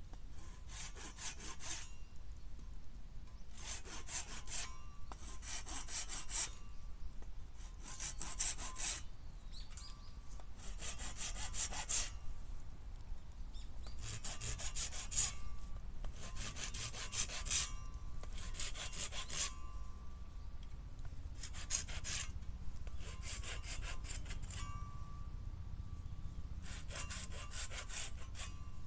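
Hand saw cutting through bamboo in slow, even strokes. Each stroke is a rasping burst about a second long, repeating roughly every two to three seconds.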